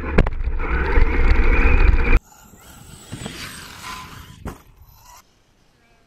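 Wind buffeting and heavy rumble on a camera riding aboard an RC monster truck as it drives over grass, cutting off abruptly about two seconds in. Then, much quieter and from farther off, an electric RC truck jumps off a ramp, with a sharp knock of its landing about halfway through.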